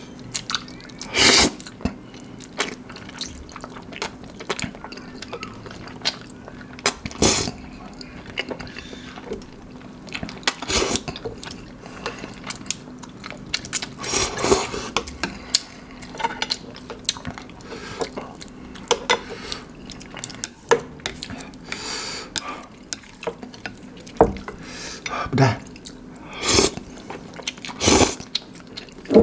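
Slurping of saucy, cheese-coated spicy instant noodles and wet chewing close to the microphone, with chopsticks clinking on a ceramic plate. Several loud slurps stand out every few seconds.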